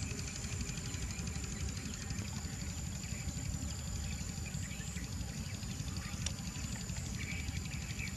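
Open-field ambience: a steady low rumble under a constant high-pitched insect drone, with a few faint chirps near the end.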